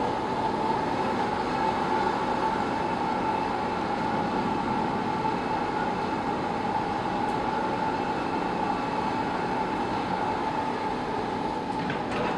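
Bore piling rig running steadily, a continuous mechanical drone with a held whine, with no loud knocking.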